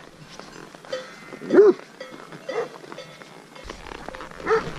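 A flock's white guard dog barking a few single barks, spaced out, the loudest about a second and a half in.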